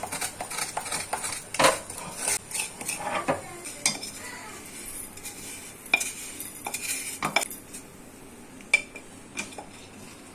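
A spatula scraping crystallised sugar (tagar) that has stuck to a kadhai out into a steel bowl, with irregular scrapes and sharp knocks of the spatula against the pan and bowl.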